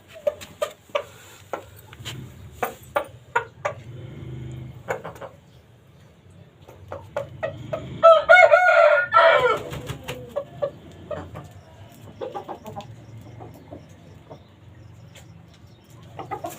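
Chickens clucking in short, quick calls, then a rooster crows once about eight seconds in, the loudest sound, a call of about two seconds that drops in pitch at its end. Scattered clucks follow.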